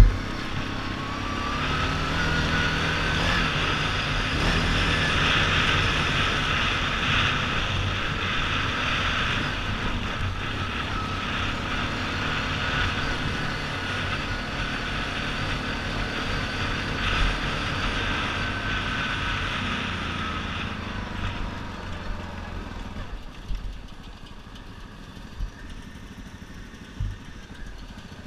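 Yamaha Grizzly 700 ATV's single-cylinder engine running under load with a rising whine that then holds steady, over a broad hiss. About twenty-two seconds in it eases off to a quieter run, with a few sharp knocks.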